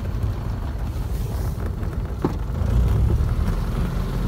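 Low, steady rumble of a Jodel D140's engine at low power and its wheels rolling on a grass airstrip just after landing, heard inside the cockpit. A small click about two seconds in.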